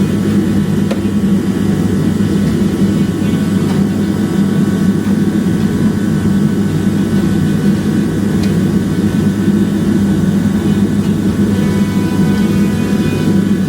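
Steady, unbroken low engine drone.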